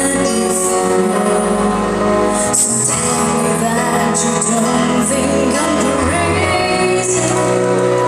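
A woman singing into a microphone over amplified instrumental music, holding long notes.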